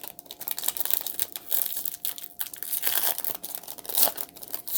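A trading card pack's wrapper being torn open and crinkled, an irregular crackling rustle.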